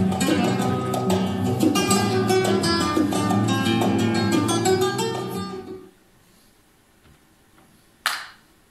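Spanish-style guitar music, flamenco-like plucked and strummed strings, playing and then dying away at about six seconds. Near the end comes a single short, sharp crack.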